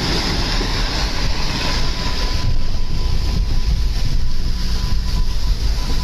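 Steady loud rush of muddy floodwater and rain, heard from inside a car, with a deep rumble underneath. A thin, steady high tone joins in about two seconds in.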